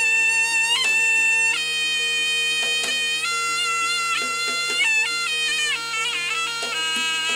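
Jaranan music led by a slompret, the Javanese double-reed shawm, playing a loud, nasal melody of long held notes that slide from one pitch to the next, over a steady lower tone and a quick beat.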